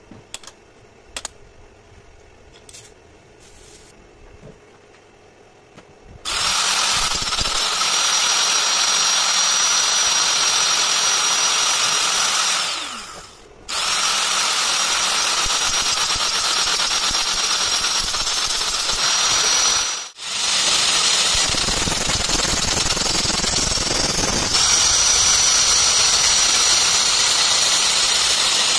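Angle grinder clamped to a lathe's tool post, grinding a tap held in the lathe chuck. After a few clicks of handling it starts abruptly about six seconds in and runs loud and steady with a high whine. Around the middle it winds down and restarts, then cuts out for a moment and starts again.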